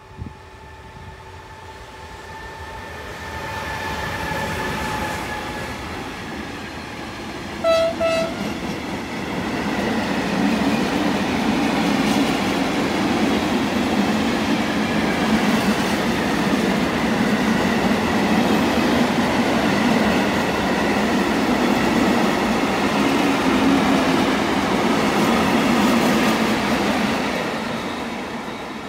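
An E494 electric freight locomotive approaches with a steady whine, sounds a short horn blast about eight seconds in, then runs past. Its intermodal container wagons follow with a loud rumble and clatter of wheels on rail, fading near the end.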